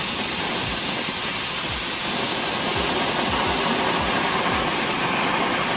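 Handheld gun-shaped red-flame firework (a 'PUBG gun' cracker) burning, its muzzle spraying red flame and sparks with a steady hiss.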